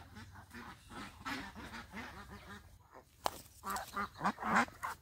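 A flock of ducks quacking in quick, overlapping calls, louder in the second half, with a sharp knock about three seconds in.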